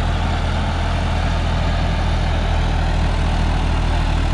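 John Deere tractor's diesel engine running steadily under load, driving a 10-foot rotavator that is tilling the soil.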